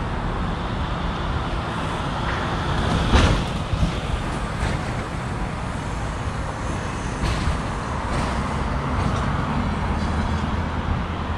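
Steady city traffic noise, with one loud thump about three seconds in and a few fainter knocks after it.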